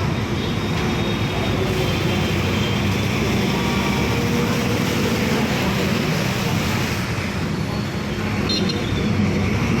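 Steady road traffic noise: vehicle engines and tyres running past without a break.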